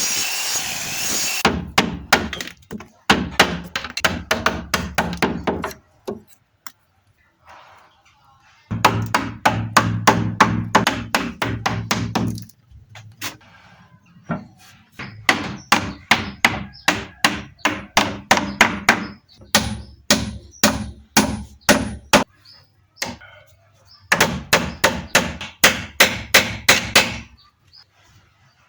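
Hammer striking wood in quick, even runs of blows, about three to four a second, stopping and starting in groups of several seconds. It is typical of driving a chisel or knocking frame joints together. A short burst of machine noise opens it.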